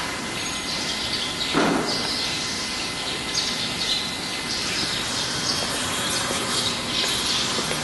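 Birds chirping continually in the background, with one short, louder noise about one and a half seconds in.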